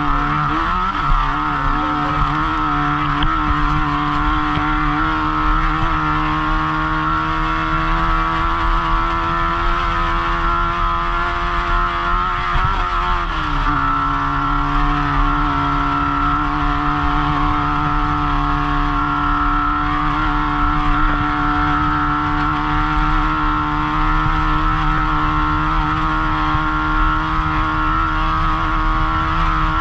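Off-road race car's engine running hard at high, steady revs, heard from inside the car with road and wind noise. About halfway through the revs dip and waver briefly, then settle a little lower and hold steady.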